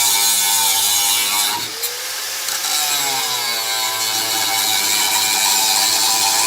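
Metabo WP9-115 Quick 4.5-inch angle grinder with a thin cut-off wheel cutting black iron pipe, a steady motor whine over the grinding. About a second and a half in, the load eases and the motor's pitch climbs as it spins back up.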